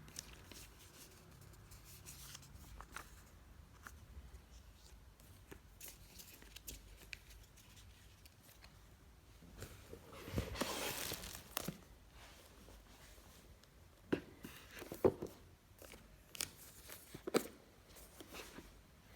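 Packaging being handled and opened: light clicks and rustles, a tear of paper or plastic lasting about two seconds around the middle, then several sharper knocks and taps of box parts near the end.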